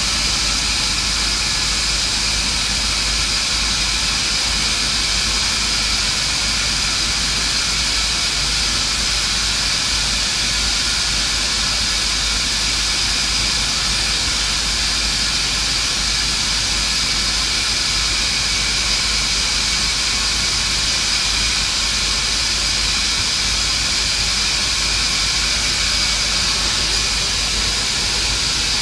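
Electric welding arc burning steadily on 8-inch steel pipe: a continuous hiss with a constant high tone over it, unbroken throughout.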